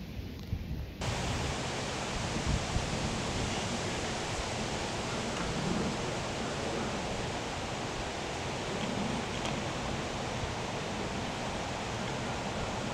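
Steady rushing wind with a low rumble of gusts on the microphone, cutting in abruptly about a second in.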